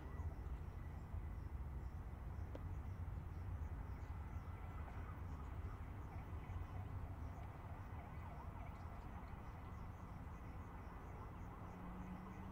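Steady low rumble of distant highway traffic, with faint high insect chirps repeating over it.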